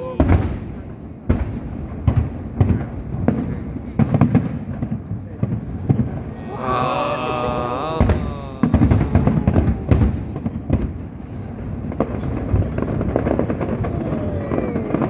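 Aerial fireworks bursting in an irregular, rapid series of booms and cracks, the loudest bangs near the start and again around eight seconds in.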